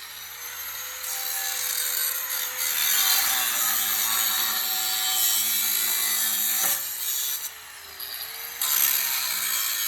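A power saw cutting, with a harsh rasping noise, its motor pitch sagging under load and recovering; the cut eases off briefly about three-quarters of the way through.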